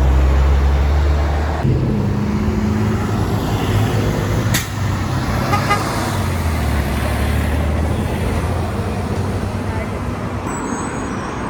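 Heavy diesel garbage truck engines running and driving past, with a loud low drone at the start that gives way to a steady rumble. A single sharp click comes about halfway through.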